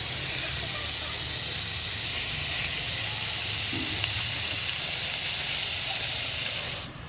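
Snakehead fish steaks sizzling in hot soybean oil and pounded kroeung spice paste in an aluminium pot, a steady hiss that cuts off suddenly near the end.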